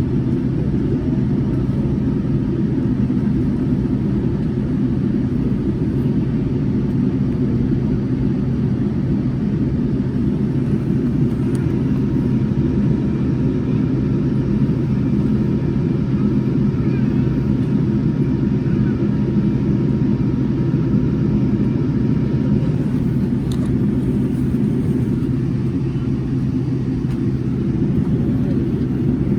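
Steady low rumble inside the cabin of a Boeing 787-10 airliner, its engines running on the runway as it lines up and begins its takeoff roll.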